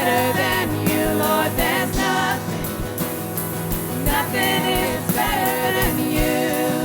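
Live worship band playing a Christian song with a lead singer, over sustained chords and a steady drum beat of about two hits a second.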